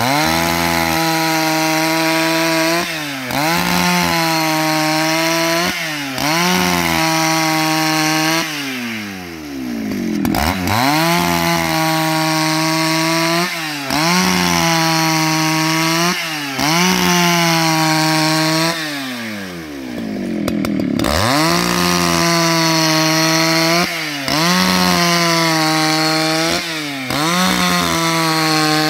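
Husqvarna 281 XP two-stroke chainsaw ripping a plank lengthwise at high revs. The engine pitch dips briefly and recovers every two to three seconds, and twice it drops low and revs back up.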